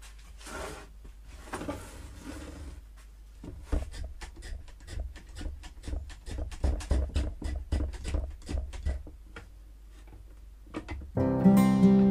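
A wooden board scraping as it slides across a workbench, then a quick run of clicks and knocks as a clamp is fitted to the board. Acoustic guitar music starts about a second before the end.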